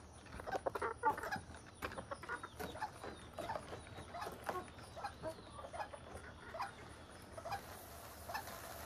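Chickens clucking in many short, irregular calls while feeding.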